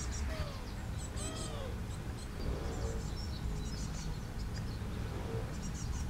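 Small songbirds chirping with short, high calls, a few lower arching whistles about a second in, over a steady low rumble.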